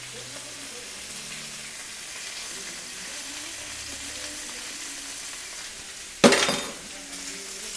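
Food sizzling steadily as it fries in a pan, with one sharp, ringing clatter about six seconds in.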